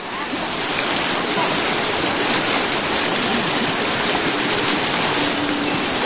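Steady rushing of a mountain river or stream, rising in level over the first second and then holding even.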